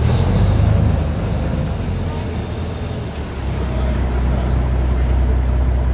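Canal passenger boat's engine running steadily under a rushing noise, heard from inside the open-sided cabin while under way. The low hum eases a little about halfway through, then grows louder again.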